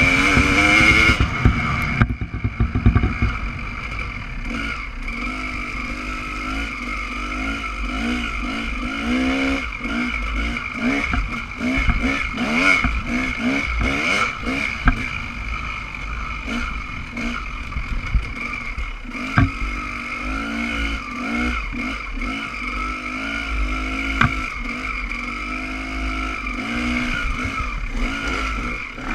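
Dirt bike engine running under riding, its pitch rising and falling as the throttle is opened and closed. A few sharp knocks stand out along the way.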